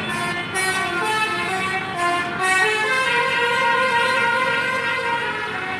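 A bus's telolet basuri musical horn playing a tune: quick changing notes at first, then longer held notes from about halfway through.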